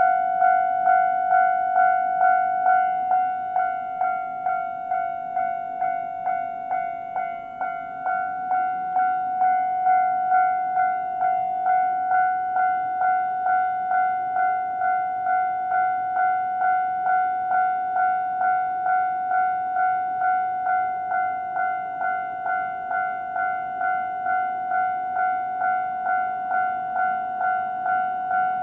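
Japanese railway level-crossing warning bell ringing: an electronic ding at one steady pitch, repeated about twice a second, the signal that a train is approaching and the crossing is closed.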